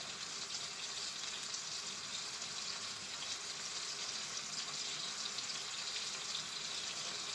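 Burger patty frying in butter in a pan, a steady sizzling hiss.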